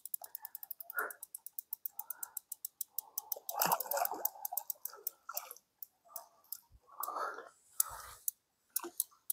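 A fishing reel's ratchet clicking rapidly, about eight clicks a second, then slowing and breaking up, among irregular handling rustles.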